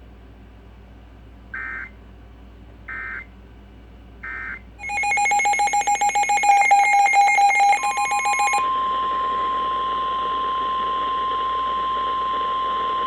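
NOAA Weather Radio alert sequence. Three short bursts of SAME header data come first, then a loud, rapidly pulsing electronic alert tone for several seconds. Near the end of the alert tone the steady 1050 Hz warning alarm tone begins and holds over radio hiss, the signal that a warning broadcast follows.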